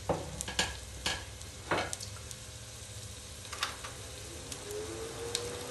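Sliced onions sizzling steadily in hot olive oil in a frying pan, with a few sharp clicks in the first two seconds.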